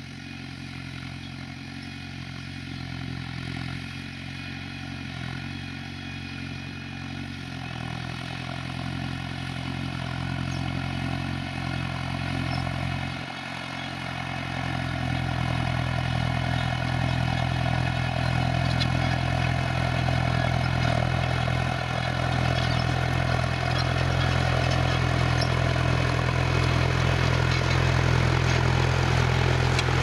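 New Holland 6010 tractor's diesel engine running steadily under load while pulling a three-furrow Kverneland plough uphill, getting louder about halfway through as the tractor comes closer.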